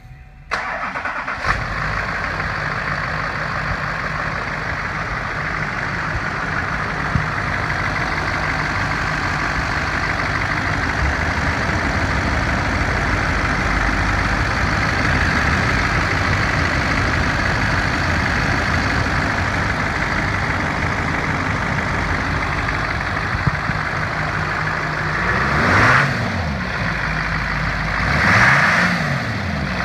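LLY Duramax 6.6-litre turbo-diesel V8 idling steadily with diesel clatter. Near the end it is blipped twice, the pitch rising and falling back each time.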